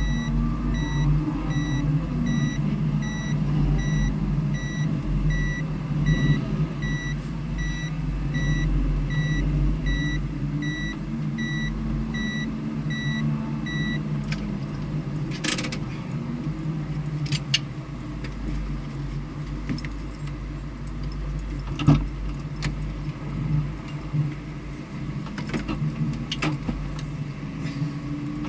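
Vehicle engine idling steadily. A high electronic beep repeats about twice a second until about halfway through, then stops. After that come a few sharp clicks and knocks.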